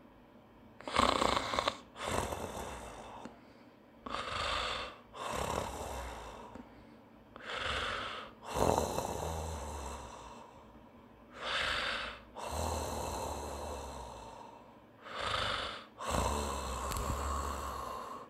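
A man breathing loudly close to the microphone: five breaths, each a short breath then a longer one, about every three and a half seconds.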